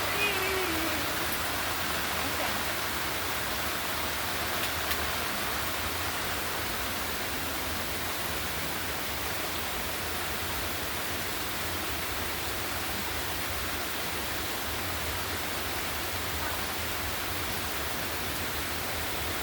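Steady heavy rain, an even hiss of rainfall that holds at one level throughout.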